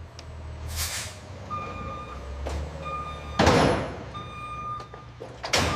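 A truck backing up, its reversing alarm beeping three times about 1.3 seconds apart over a low engine rumble. Loud bursts of noise cut across it, the loudest about three and a half seconds in.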